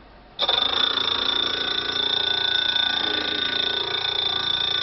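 Grinding wheel on a wheel truing stand engaging the wheel being trued: a sudden, loud, steady high-pitched grinding whine that starts about half a second in and holds.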